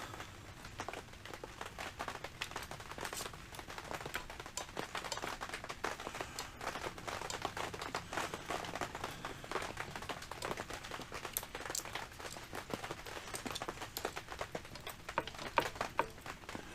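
A motorcycle rear brake caliper with new pads being wiggled and worked onto the brake disc: many small, irregular metallic clicks and taps.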